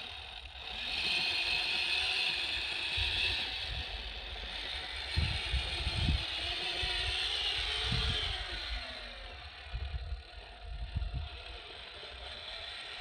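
RC rock crawler's electric motor and geartrain whining as it climbs over loose gravel, the pitch shifting with the throttle, with a few low thumps midway. The whine eases off in the last few seconds.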